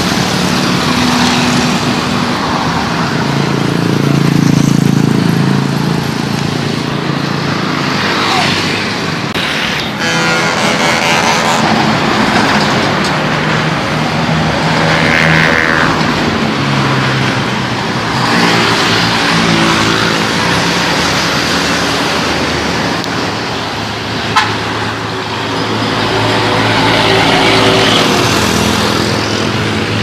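Road traffic passing on a highway: diesel trucks, buses and motorcycles drive by one after another, their engines swelling and fading as each goes past. There is a single sharp click a little before the end.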